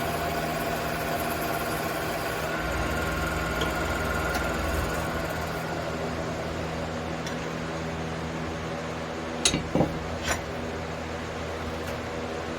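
Wood lathe motor running with a steady hum. A few sharp clicks come about three-quarters of the way through.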